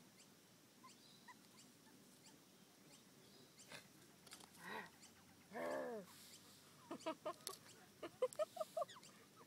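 Juvenile Australian magpie's begging squawks while being hand-fed: a couple of loud squawks starting about four seconds in, then a quick run of short rising-and-falling squawks near the end.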